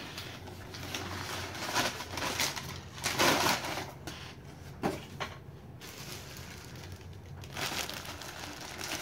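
Packing paper and plastic wrapping being crumpled and rustled by hand as a parcel is unwrapped, in irregular bursts, loudest about three seconds in.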